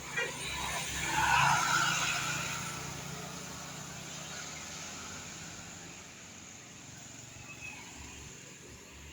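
A bus driving past: engine rumble and road noise swell to a peak about a second and a half in, then fade away slowly.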